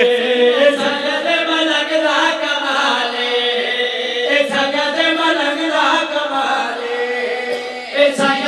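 Several men chanting a Punjabi devotional refrain together into microphones, their voices held on long, drawn-out notes.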